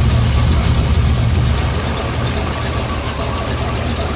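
A vehicle engine idling with a steady low rumble.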